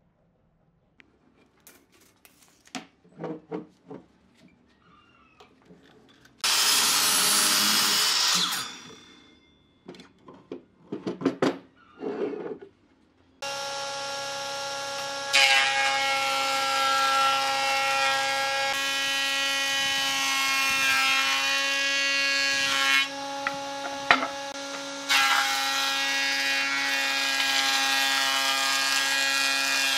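A Makita sliding compound miter saw makes one short cut through a board about six seconds in, then winds down, among knocks of wood being handled. About halfway through, a combination woodworking machine starts and runs steadily with a hum. Its planer cuts a board, louder while the wood is feeding through, with a short break between passes.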